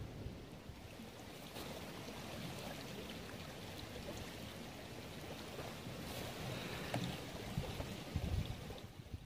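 Steady, even rushing noise of woodland outdoor ambience, with a few faint ticks scattered through it.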